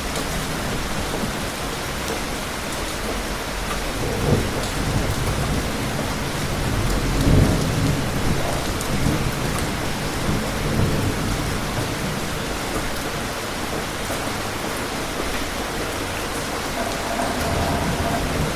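Steady rain falling, with low rolls of thunder swelling about four seconds in and again around seven to eight seconds in.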